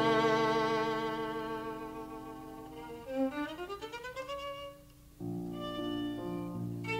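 Violin playing slow classical music. A long note with vibrato fades away and a rising phrase follows. After a brief pause about five seconds in, a new phrase starts over lower accompanying notes.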